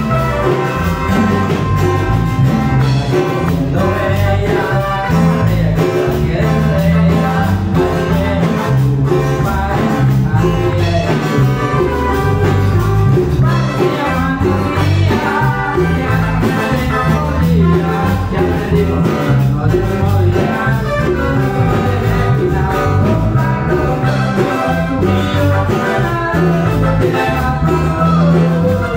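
Live band music with keyboards and drums, played loud through PA speakers, running steadily without a break.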